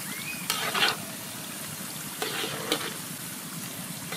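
Taro sticks deep-frying in hot oil, a steady sizzle. Twice, about half a second in and again around two seconds in, metal tongs rattle and scrape against a wire-mesh skimmer as the pieces are lifted out.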